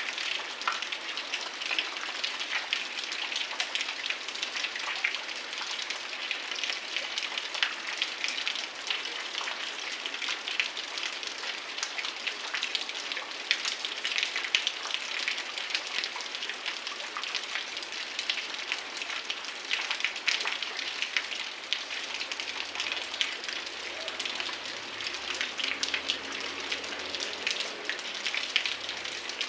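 Heavy rain falling steadily, a dense patter of drops hitting surfaces.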